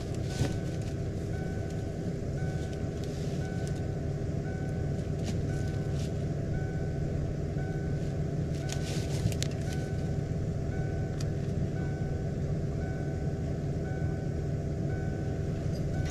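Old Ford F-150 pickup's engine idling steadily, with a repeating electronic beep at about two beeps a second. A few sharp clicks come through, clustered about halfway.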